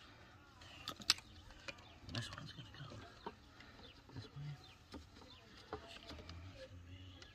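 Handling of drip-irrigation tubing and plastic push-on fittings: a few sharp clicks and taps, the loudest about a second in. Faint bird calls in the background.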